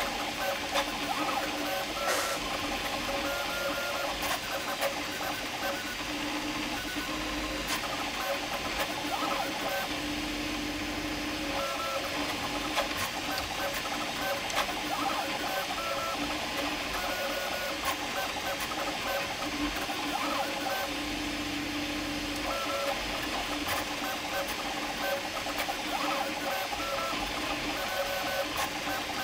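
Prusa MK4 3D printer printing at high speed: its stepper motors whine in short tones that change pitch with each move, over a steady hiss.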